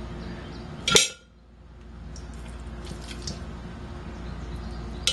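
Metal cookware clinking: a sharp, ringing clink about a second in and another at the end, with faint small clatters and handling noise in between.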